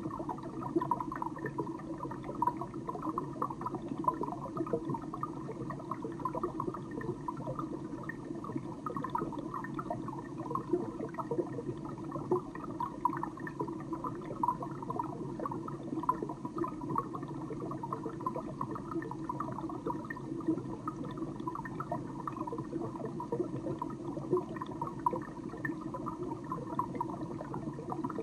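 Underwater water ambience: a steady rush of water with constant small bubbling pops.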